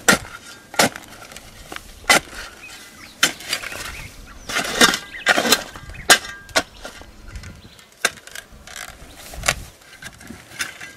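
Steel shovel blade digging a planting hole in dry, stony soil: about a dozen uneven chops and scrapes, roughly one a second.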